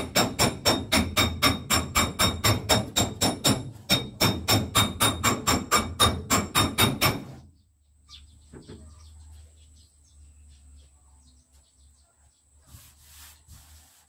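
Hammer striking a Toyota Celica's steel bonnet in quick, even blows, about four a second, each with a metallic ring, as the panel is knocked back into shape. The hammering stops about seven seconds in, leaving only faint handling noises.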